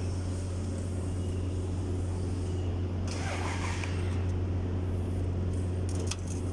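Steady low drone of a running engine or motor, unchanging throughout, with a few sharp clicks about six seconds in.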